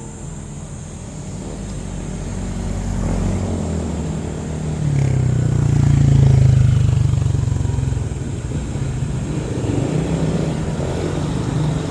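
Motor vehicle engine passing close by, growing louder to a peak about six seconds in, then easing off. A faint steady high hum from insects runs underneath.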